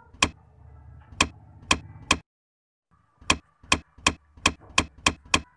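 A handmade paper push-button toy clicking as its paper cube is pressed down into its paper box. There are four sharp clicks, a short pause, then seven quicker, evenly spaced clicks.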